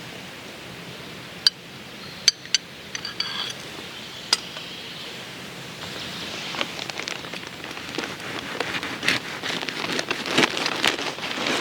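Wood fire crackling: a few sharp, separate pops at first, then denser, busier crackling from about halfway through.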